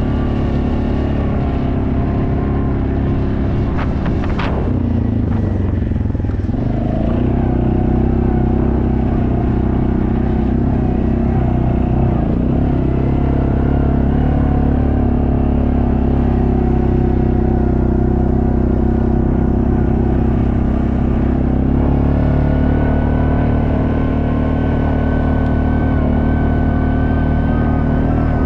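ATV engine running as the quad is ridden across rough dirt and grass. The engine note dips about four seconds in, holds steady, then climbs and stays higher past twenty seconds.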